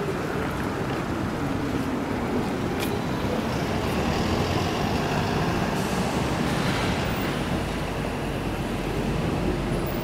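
City street traffic: road vehicles running past in a steady wash of noise, with a brighter hiss swelling for a few seconds in the middle.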